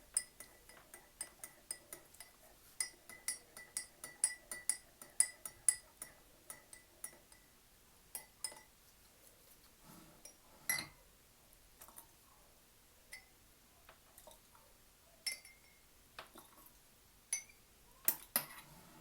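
A spoon clinking against the sides of a cup while stirring honey into a ginger and lemon-peel drink. The clinks come quickly and steadily, about three or four a second, for roughly the first eight seconds, then thin out to occasional single taps.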